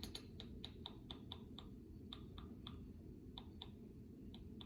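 A run of light, sharp clicks or taps, about fifteen in irregular quick clusters with short gaps between them, over a steady low background hum.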